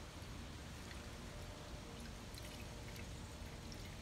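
Pink RV/marine antifreeze poured from a plastic gallon jug into an open coolant hose of a V8 inboard boat engine: a faint, steady pouring trickle. This is the block being filled with antifreeze to winterize it.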